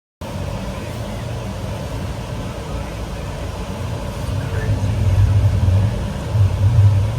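A vehicle engine idling, a steady low rumble that grows louder about four and a half seconds in.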